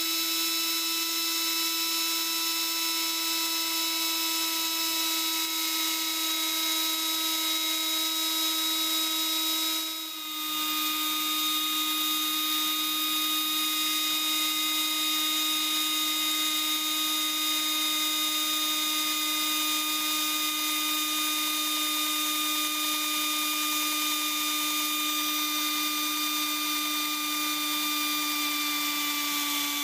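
Die grinder mounted on the lathe's tool post, running with a steady high whine as its mounted stone grinds the inside of the jaws of an old scroll chuck, truing the jaws, with sparks flying. The whine dips briefly about ten seconds in, and its pitch sags slightly after that as the stone bears into the metal.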